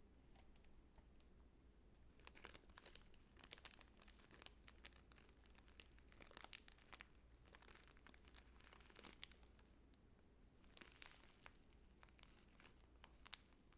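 Faint crinkling and crackling of something dry being handled, in irregular clusters of small crackles that start about two seconds in, pause briefly, then resume.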